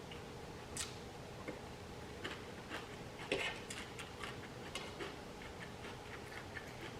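Faint, irregular soft clicks of chewing and mouth sounds close to the microphone, about a dozen over several seconds.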